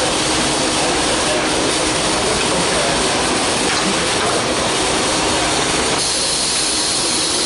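Steady, loud rushing noise of a machine shop floor, with no distinct strokes or clicks; it turns a little brighter about six seconds in.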